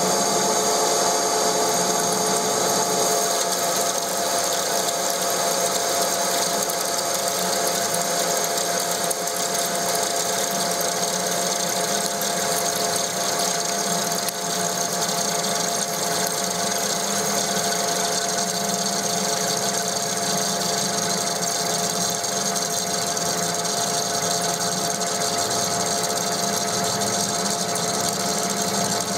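TOS SN63B lathe under power feed, a square carbide insert turning steel with a cut of about 2 mm at 0.22 mm per revolution, curling off chips hot enough to turn blue. A steady mix of whining tones and cutting hiss.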